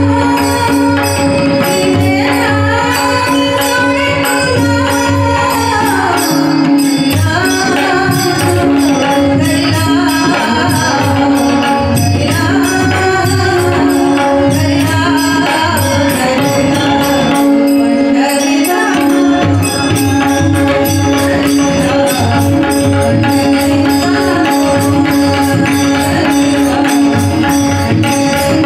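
Marathi devotional abhang bhajan performed live: a woman's singing voice over a steady drone, with hand cymbals and a drum keeping the beat.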